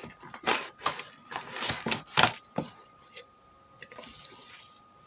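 Rustling and clattering of packaging and parts being handled as a cordless inflator is taken out of its box: a run of irregular scrapes and knocks, busiest in the first couple of seconds, then a few faint ticks.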